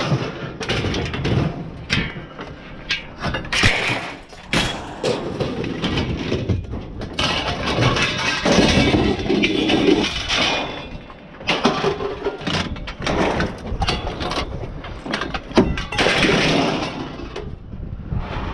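Scrap metal junk being handled and dropped: a dense run of clanks, bangs and rattles, with longer clattering stretches about halfway through and near the end.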